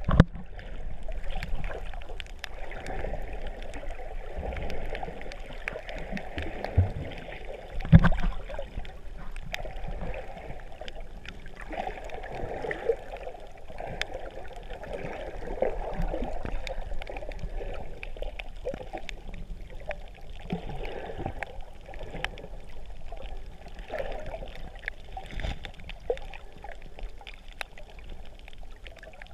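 Underwater sound heard through a GoPro's waterproof housing: a steady, muffled watery hiss and gurgle with scattered faint ticks. A dull thump comes at the very start and a louder one about 8 seconds in.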